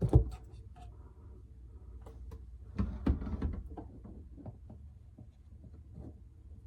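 Scattered knocks and clicks of objects being handled, the loudest just after the start and a cluster of them about three seconds in.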